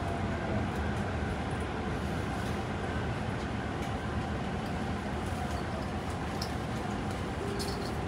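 Tobu 50090-series electric train heard from inside the car while running: a steady rumble of wheels on rail and car noise.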